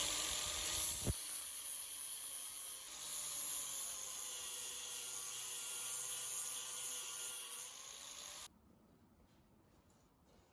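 A steady, loud hiss like a spray or jet of air, with a faint wavering whistle under it. It starts abruptly and cuts off sharply after about eight and a half seconds.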